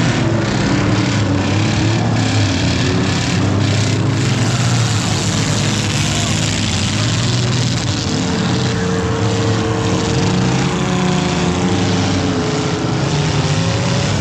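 Engines of several large junk cars revving hard at once as they race, their pitches rising and falling and overlapping.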